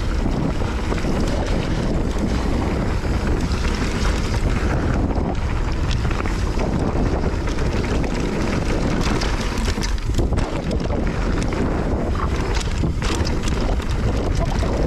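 Wind buffeting the microphone on a Nukeproof Giga mountain bike descending a dirt trail, with tyre roar and many quick clicks and rattles from the bike over the ground.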